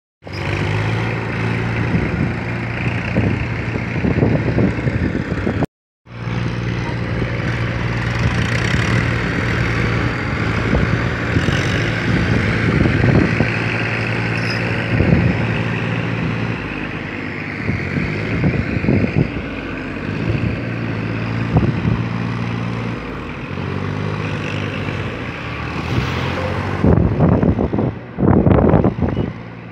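Tafe 45DI tractor's diesel engine running steadily in a flooded paddy field. The sound drops out briefly twice near the start, and louder uneven noise breaks in near the end.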